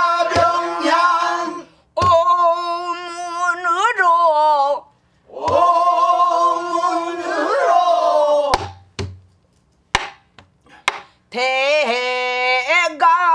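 A woman singing pansori in long, wavering phrases with wide vibrato and slides in pitch, broken by short pauses. Sharp drum strokes, from a buk barrel drum, mark the phrase starts. A few strokes fall alone in the pause in the middle.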